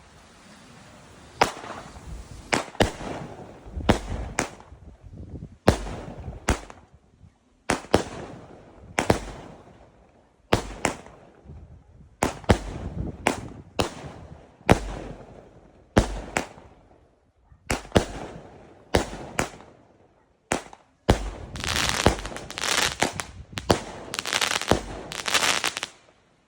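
Consumer mini fireworks cake firing shot after shot, about one sharp report a second, each followed by a short hissing tail. In the last few seconds the shots come thicker and brighter as a finale, then stop abruptly.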